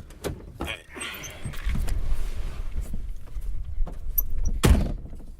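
A few sharp clicks, then rustling and shuffling over a low rumble, ending in a single loud thump about four and a half seconds in.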